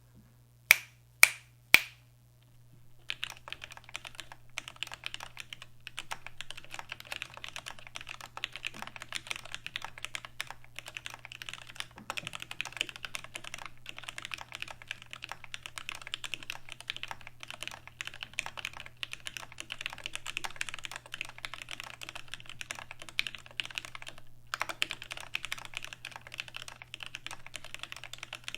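Three sharp, loud clicks about a second in, then fast, continuous typing on a mechanical keyboard with lubed Gateron Black Ink linear switches, a steel plate and GMK keycaps. The typing pauses briefly near the end.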